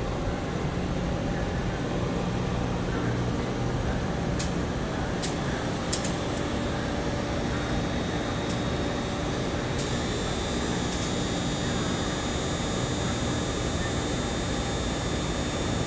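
Steady hum and air noise of a large machine shop's ventilation and equipment running, with a few faint clicks and, from about ten seconds in, a faint high whine.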